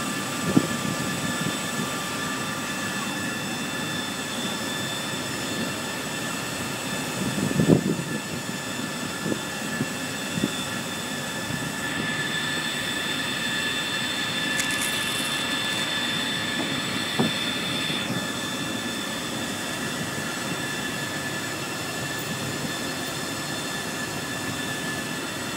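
Steady rush of wind and machinery noise on the deck of a navy ship in heavy seas, with a thin high whine held over it throughout. A few dull thumps break in, the loudest about eight seconds in.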